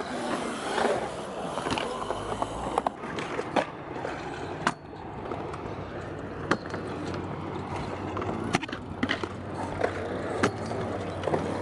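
Stunt scooter wheels rolling over a concrete skatepark bowl, a steady rumble broken by sharp clacks about every one to two seconds.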